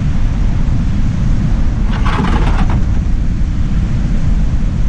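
Steady low rumble of wind buffeting the microphone, with a brief rustling noise about two seconds in.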